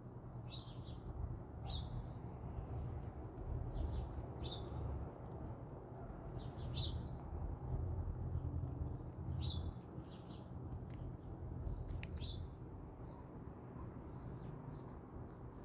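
A bird outside calling a short, high chirp again and again, a couple of seconds apart, over a steady low rumble.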